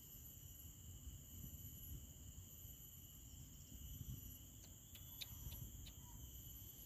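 Near silence: a faint steady high insect chorring, likely crickets, with a low rumble underneath and a few faint ticks about five seconds in.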